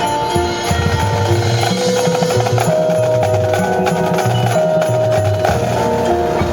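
Marching band playing: held notes over a rhythmic low bass line, with sharp percussion strikes throughout.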